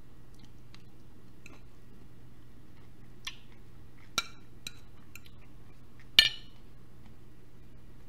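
A fork clinking and scraping against a plate a few times, the loudest clink about six seconds in, over a steady low hum.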